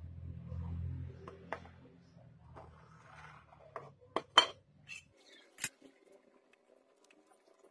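A metal fork clinking against a ceramic bowl of beaten egg: a few sharp, scattered clinks, the loudest about four to six seconds in.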